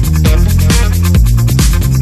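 Electronic dance music with a steady beat and a sustained bass line.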